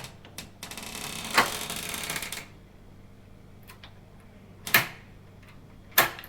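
Lavna LA48 smart door lock's motor whirring for about two seconds as it drives the deadbolt, with a click partway through, followed later by two sharp separate clicks.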